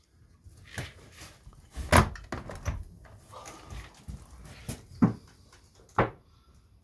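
Plastic roof vent on an RV being opened from inside, giving a string of separate clunks and knocks from its frame and hinged parts, the loudest about two seconds in.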